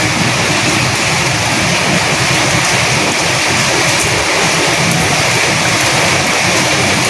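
Steady heavy rain with wind: a dense, even hiss of rain falling, with fine patter of drops, holding level throughout.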